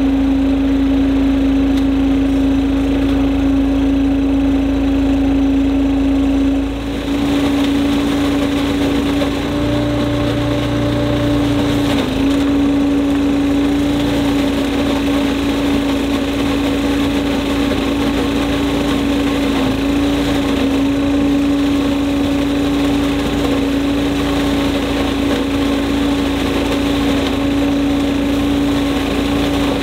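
Cyclone Rake leaf vacuum running steadily with a strong, even hum while its hose nozzle sucks up dry leaves. About seven seconds in the sound dips briefly, then carries on with more airy rush.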